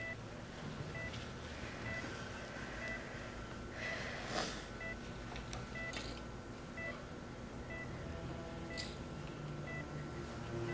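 A patient monitor in an operating room beeping steadily, about two short beeps a second, with a few soft rustles and clicks.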